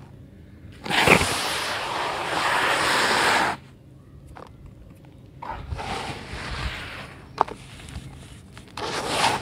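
Handfuls of dry, crumbly red dirt poured onto a loose dirt pile, grains and small clumps pattering and sliding down. There is one long pour of about three seconds starting about a second in, a softer one in the middle, and another near the end.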